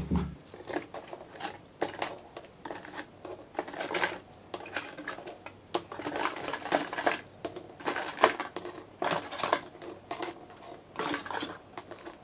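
Plastic coffee capsules being taken from their cardboard box and set down one by one on a countertop: a string of irregular light clicks and knocks, with the rustle of the box.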